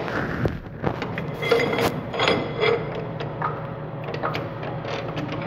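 Metal clicks, clunks and short scrapes as a metal lathe's quick-change tool post and three-jaw chuck are handled and adjusted by hand, over a steady low hum.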